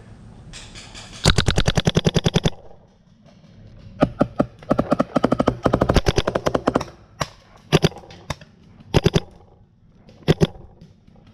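Paintball markers firing rapid strings of shots, about a dozen a second. One long string comes about a second in and another about four seconds in, followed by several short bursts of two or three shots.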